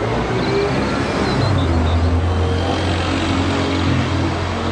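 A single-deck Alexander Dennis Enviro city bus driving past and pulling away, its engine making a steady low drone that grows stronger about a second and a half in, over street traffic noise.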